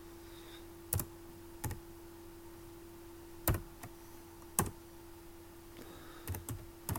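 Computer keyboard keys pressed one at a time: a handful of separate sharp clicks at uneven gaps, over a faint steady hum.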